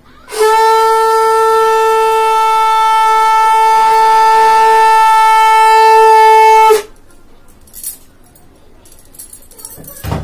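Conch shell (shankha) blown in one long steady note for about six seconds, then cut off suddenly, sounded as the puja ends. A short knock follows near the end.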